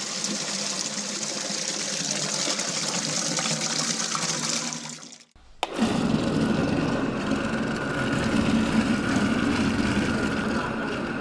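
Water running in a steady hissing stream as it is added to curd for churning. After an abrupt cut about five seconds in, an electric curd-churning machine runs with a steady low mechanical hum.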